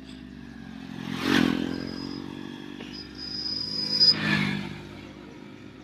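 Motorcycle engines on a road: a steady engine hum with a motorcycle passing close about a second in and another vehicle passing about four seconds in, each swelling and fading away.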